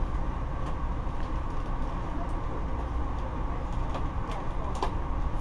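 Freight cars rolling past on yard track: a steady low rumble with sharp clicks every second or so as the wheels cross rail joints.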